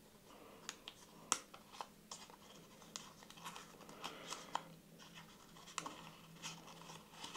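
Faint crinkling and scattered small ticks of a paper wrapper being opened around a double-edge razor blade.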